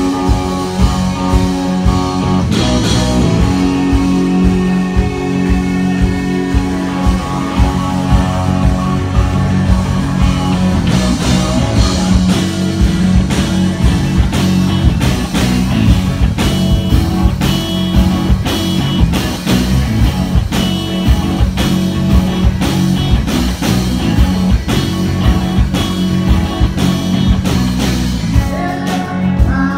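Rock band playing live: electric guitars and drum kit with a steady beat, and a singer's voice over them.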